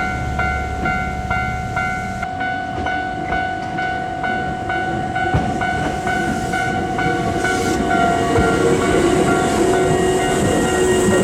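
Hankyu train running on the rails, getting louder in the second half, over a ringing tone that repeats about twice a second.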